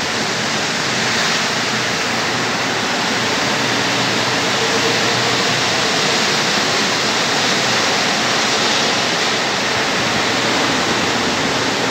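Mexico City Metro train moving alongside the platform: a steady rushing noise with no distinct tones.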